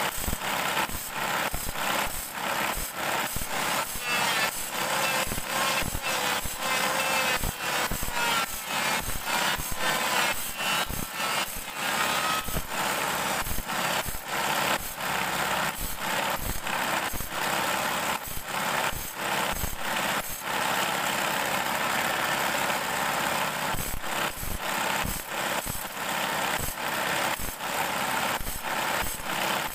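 Bandsaw blade teeth being sharpened one by one against a motor-driven spinning disc: the motor runs steadily while short grinding strokes repeat roughly every half second as each tooth touches the disc.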